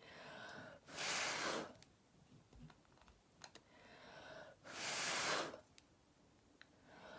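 A person blowing by mouth across wet acrylic paint: two long breaths out, about four seconds apart, each after a softer breath in, and a third starting at the end. The blowing pushes the white cell-activator layer outward to open the flower-like bloom.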